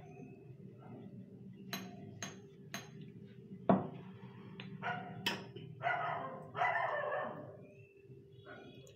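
Wooden rolling pin working paratha dough on a stone counter: three quick knocks about two seconds in and a single loud knock near four seconds. A few loud calls sound in the background later on, over a low steady hum.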